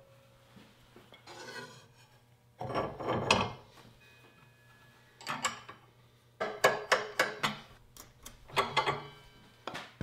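Table saw parts being handled in the arbor opening: metal clinks and clatters as the molding head cutter comes off the arbor and the saw blade and arbor nut go on. The clinks come in several short bunches with pauses between them.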